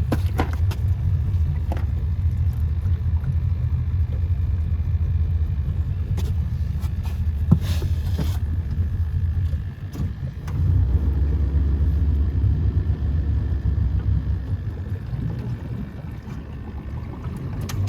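Boat's outboard motor running at low speed, a steady low rumble that drops off briefly about ten seconds in and then picks back up. Scattered light knocks and a short hiss about eight seconds in sit over it.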